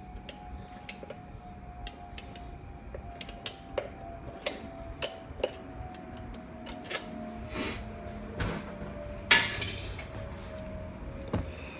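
A screwdriver working at a stubborn small screw in an electric motor's housing: a series of sharp metallic clicks and clinks, with a louder scrape about nine seconds in.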